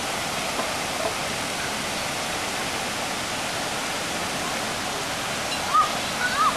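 Steady rushing of a shallow stream pouring over rock slabs and small cascades. Near the end a few short, high calls break in over the water.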